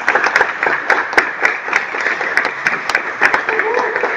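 Audience applauding: a dense, steady mass of handclaps.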